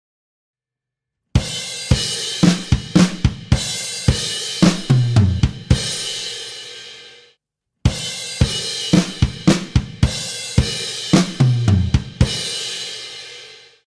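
Acoustic drum kit playing a short groove-and-fill phrase twice with a brief silence between. Each phrase has snare, hi-hat and bass drum strokes, with heavier, lower drum hits near its end, and closes on a cymbal crash that rings out.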